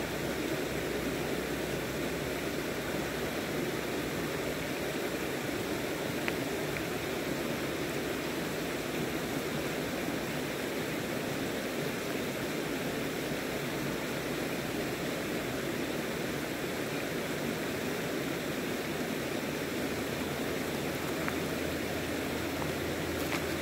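Steady rush of a river's running water. A few sharp clicks come near the end.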